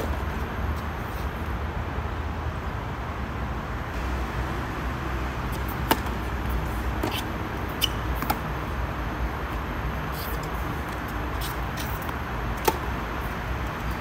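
Tennis rally: sharp pops of racket strings striking the ball, a few seconds apart, over a steady low background rumble.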